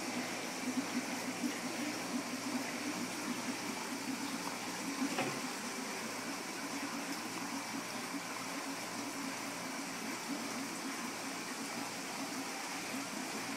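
Steady churning and bubbling of aquarium water from a running filter or pump, with one faint click about five seconds in.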